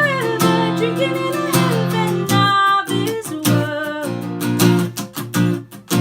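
Acoustic guitar strummed and picked under a woman's singing voice, in a live performance of a song. The voice wavers on held notes through the first two seconds, and the guitar strums carry on beneath.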